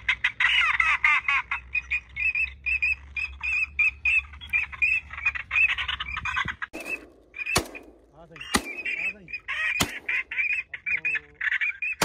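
Recorded duck calls played through an electronic caller's loudspeaker: a fast, continuous string of short high calls, several a second. A few sharp knocks sound about halfway through.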